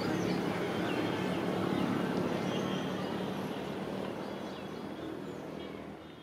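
Railway station ambience: crowd chatter and birds chirping over a steady low hum, fading out near the end.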